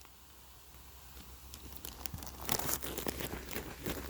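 Plastic bag crinkling and crackling as it is handled and closed. Quiet at first, then irregular crinkles start about two and a half seconds in.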